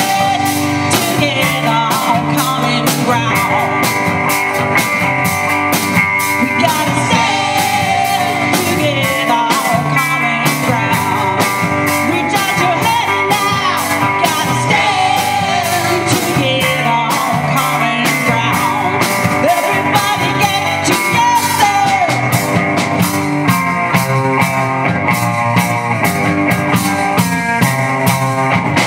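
Live rock band playing: a woman singing lead over a drum kit keeping a steady beat, electric bass and electric guitar.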